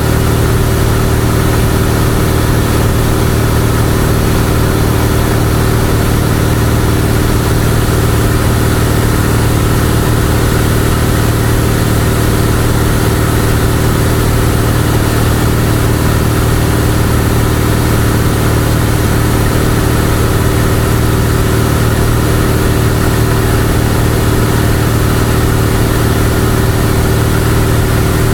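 Cessna 172's piston engine and propeller running steadily in cruise flight, heard from inside the cabin with a hiss of airflow over it.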